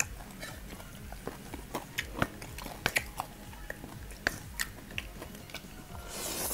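Close-up eating of spicy instant ramen noodles: chewing with wet clicking mouth sounds, then a slurp as a chopstick-load of noodles goes into the mouth near the end.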